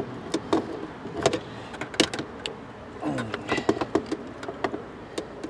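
Scattered metal clicks and clanks from locking pliers clamped on a parking brake cable and the lever's ratchet wheel as the cable is tugged by hand. The cable will not move, which the owner takes for the rear cables being seized in their sheaths.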